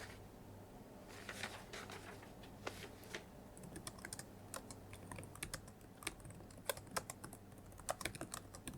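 Soft typing on a computer keyboard: irregular keystrokes, sparse at first and coming more quickly from about three and a half seconds in, over a faint low steady hum.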